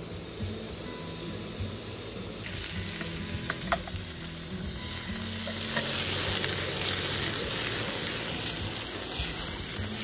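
Food frying in a hot pan, a steady sizzle that grows louder about halfway through.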